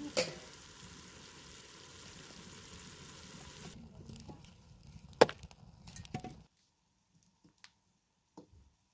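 Steady frying hiss from a pot of onions, then a wood fire of thin sticks crackling with a few sharp snaps, the loudest about five seconds in. After about six and a half seconds only faint scattered ticks remain.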